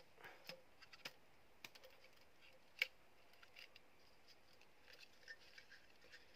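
Faint clicks, taps and light scraping of bamboo pieces being handled and fitted together while a bamboo squirrel trap is assembled, with one sharper click nearly three seconds in.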